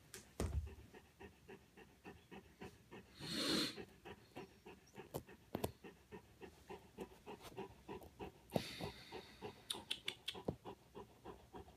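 Golden retriever panting softly and steadily, about three breaths a second. A low thump comes near the start, and louder fur rustles come twice, a third of the way in and again near the end.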